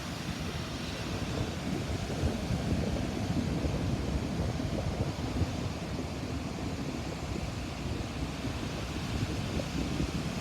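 Ocean waves breaking on a sandy beach in a steady wash of surf, with wind noise on the microphone.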